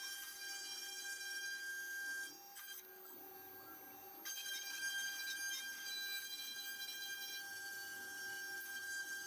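A 4-axis CNC milling machine running with a steady high-pitched whine. The whine drops away for about two seconds, starting a couple of seconds in, then returns.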